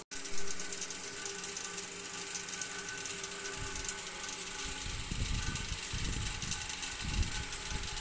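Wood fire burning in the fireboxes of a traditional pottery kiln, with dense, fast crackling and popping; low rumbling swells join in from about five seconds in.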